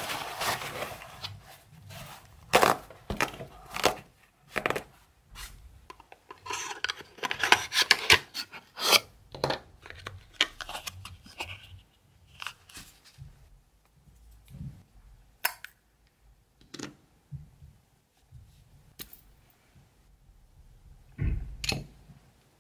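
Paper towel pulled off a roll, torn and rustled as sheets are spread out, with a dense crinkly stretch of tearing and handling in the first half. Then a cardboard box of nail forms is opened and small items are set down with light taps, with a duller thud near the end as a jar is put down.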